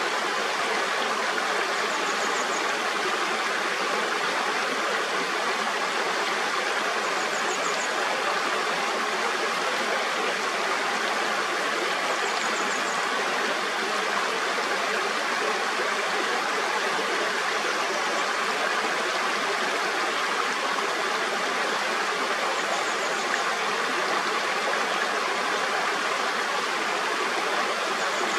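Mountain stream flowing steadily, a constant rush of water. A faint, high, short pulsing call recurs about every five seconds over it.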